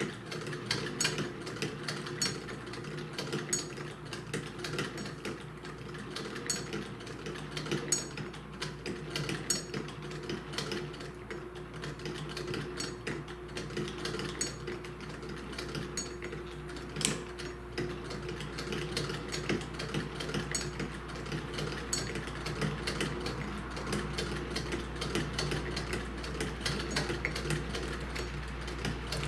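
Antique Singer hand-crank sewing machine, serial issued in 1910, running steadily as the crank is turned. Its mechanism whirs and clicks in a quick, even run of stitches.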